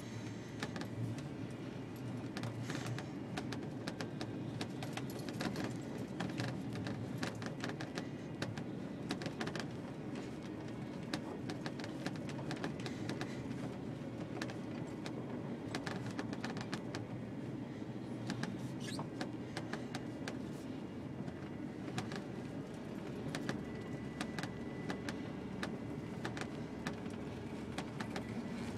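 1989 Ford F-350 brush truck heard from inside the cab while driving slowly in four-wheel drive: steady engine drone, with many small clicks and rattles throughout.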